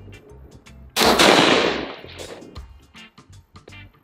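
A single shot from a Stag Arms Retro AR-15 with a 20-inch barrel in .223/5.56, about a second in, with a tail of echo that fades over about a second.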